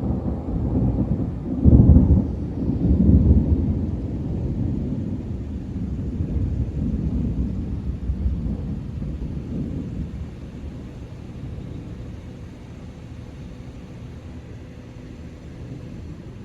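Thunder rumbling: a sharp, loud peak a little under two seconds in and a second swell about a second later, then rolling on and slowly fading away.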